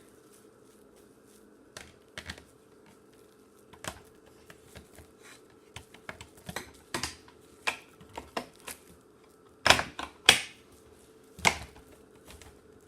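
Irregular light clicks and taps from a cordless canister vacuum being handled, with a few louder knocks near the end. The motor is not running.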